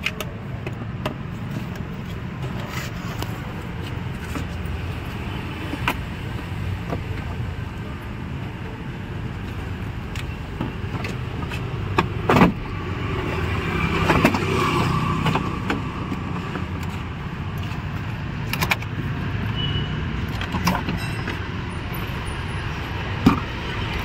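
Plastic door trim being unscrewed and prised off a Maruti Suzuki WagonR's front door, heard as scattered sharp clicks and snaps with handling and rustling of the panel. The sharpest snap comes about twelve seconds in. A steady low rumble runs underneath.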